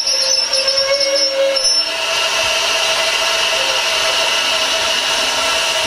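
Steam train drawing to a stand, with a brief high squeal for about the first two seconds as it stops, then a steady hiss of steam from the locomotive.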